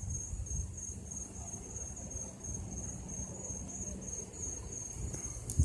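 Crickets chirping in a steady, evenly pulsing high trill, over a low rumble of breeze on the microphone.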